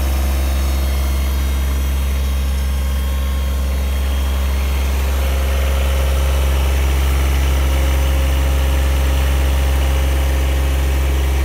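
John Deere 1023E compact tractor's three-cylinder diesel engine idling steadily.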